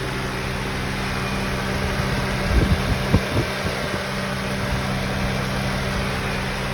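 2005 Acura TL's 3.2-litre V6 idling steadily with no clicking to be heard, a few low thumps coming in about halfway through.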